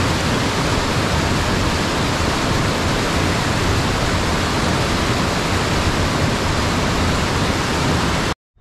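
Rushing water of a mountain stream in spring runoff, loud and steady, cutting off suddenly near the end.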